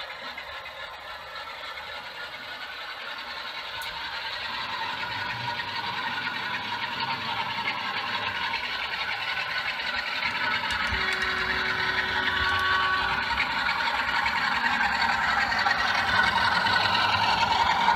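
OO gauge model diesel locomotive fitted with a DCC sound decoder, its recorded diesel engine sound playing through the model's small speaker along with the rattle of wheels on the track, growing steadily louder as the train comes closer.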